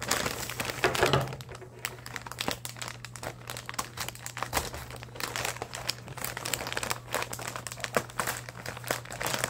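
Plastic mailer bag crinkling and crackling as it is gripped and pulled open by hand, with many small sharp crackles, loudest about a second in.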